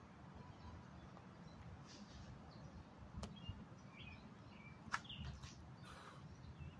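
Faint outdoor background: small birds chirping briefly now and then over a low steady rumble, with two sharp clicks about three and five seconds in.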